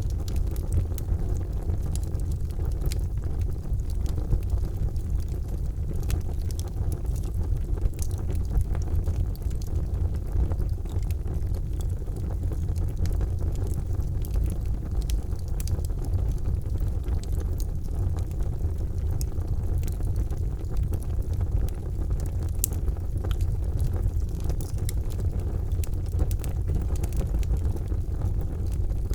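Charcoal fire burning in a fireplace, with a steady low rumble and scattered sharp crackles and pops.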